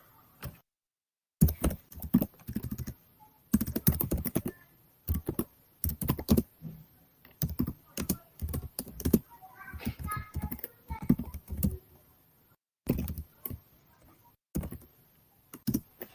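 Computer keyboard typing: irregular bursts of key clicks with short pauses between them, as a terminal command is typed in.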